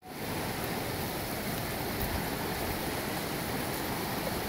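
River water rushing over rocks in small rapids, a steady hiss.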